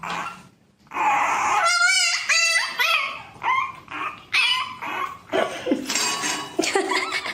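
A dog giving a run of short, high, wavering calls, starting about a second in.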